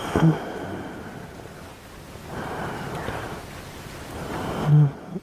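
A person snoring close to the microphone: long noisy breaths, with a short low voiced snort just after the start and a louder one near the end.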